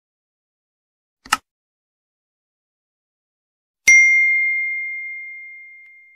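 Subscribe-button animation sound effects: a short click about a second in, then a click and a bright bell ding near the end that rings out and fades away as the notification bell is pressed.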